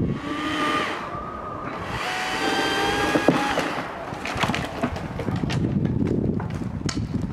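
Chainsaw running at high revs with a steady whine for about three and a half seconds, broken briefly near two seconds. After that come many sharp cracks and snaps of wood as cut limbs break away and fall through the branches.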